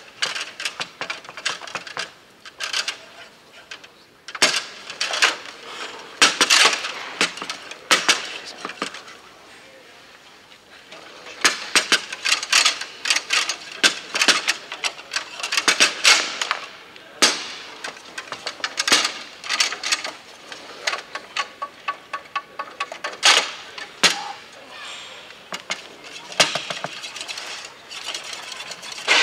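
Fast foosball play on a Bonzini table: rapid sharp clacks and knocks as the ball is struck by the players on the rods and bangs off the table walls. The clacks come in quick flurries, with a short lull about nine seconds in before play picks up again.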